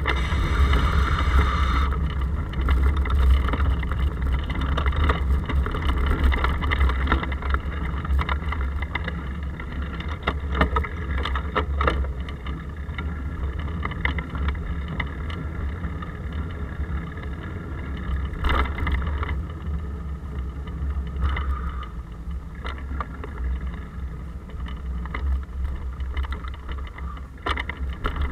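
Riding noise from a bicycle-mounted action camera in its case: a steady, heavy low rumble of wind and road vibration, with occasional sharp knocks.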